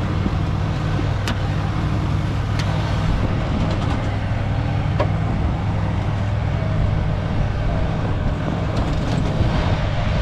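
Mitsubishi L200 pickup's engine running steadily while the truck sits stuck in deep snow on a tow rope, with a few faint clicks.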